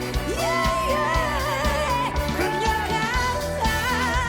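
Woman singing a trot-style song in Korean over a full band with drums and bass. She holds long notes with vibrato, then starts the next sung line near the end.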